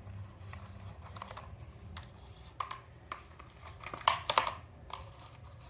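Scattered small plastic clicks and taps as a toy helicopter is handled, with a cluster of louder clicks about four seconds in, over a low steady hum.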